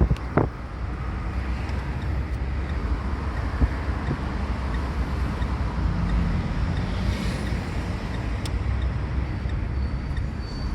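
A motor vehicle on the move: a steady low engine rumble with road noise, and a few faint clicks.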